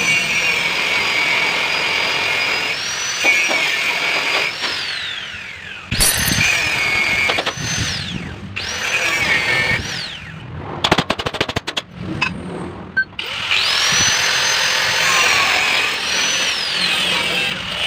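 Handheld electric power tool whining at high speed, spun up and let run down several times with falling whines as it slows. A quick run of sharp clicks comes about halfway through.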